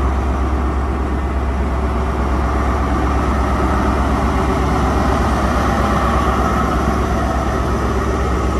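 Class 43 HST power car's diesel engine running steadily and loud, a deep hum under a wash of engine noise.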